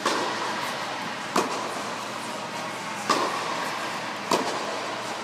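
Tennis ball struck back and forth in a rally: four sharp racket-on-ball hits about a second and a half apart, each echoing briefly in a large indoor court, over steady background noise.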